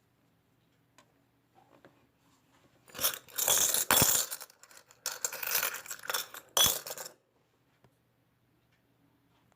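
Small hard objects clinking and rattling in two bursts, from about three to four seconds in and again from five to seven seconds in, with a sharp click near the end of the second burst.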